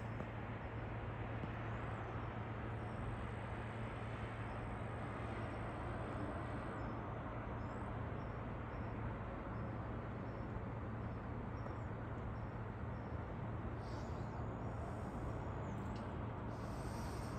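Steady, even drone of distant city traffic with a constant low hum underneath.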